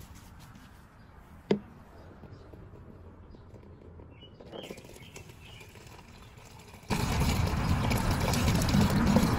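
Water from a plastic toy water table pouring into a plastic bucket beneath it, starting suddenly about seven seconds in and running steadily. Before it, a single sharp click.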